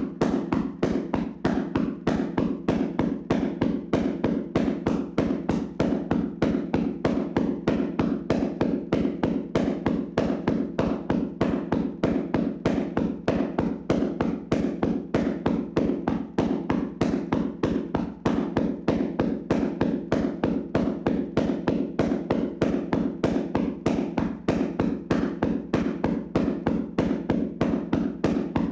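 Hands slapping rapidly on a person's body in a vigorous tapping massage: an even, unbroken rhythm of about four slaps a second.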